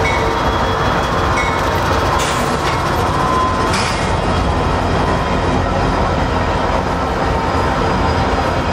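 Union Pacific diesel locomotives and double-stacked container well cars of a freight train passing close by, loud and steady: the locomotive engines running as they go past, then the steady noise of the cars' wheels on the rails.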